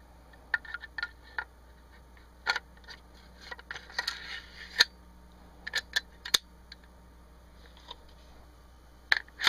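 Metal clicks and scraping of a Smith & Wesson M&P15 Sport AR-15's bolt carrier group being slid into the upper receiver during reassembly: a series of sharp clicks, with a short scrape about four seconds in.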